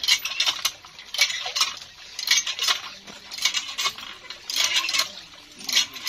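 Cast-iron hand pump (tubewell) being worked by hand: rhythmic metallic clanking of the handle and plunger, in pairs about once a second, with water gushing from the spout into a plastic jug.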